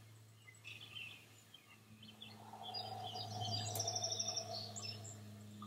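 A forceful exhale blown through pursed lips as she rises out of a squat, swelling from about two seconds in and fading near the end. Small birds chirp throughout, over a faint steady electrical hum.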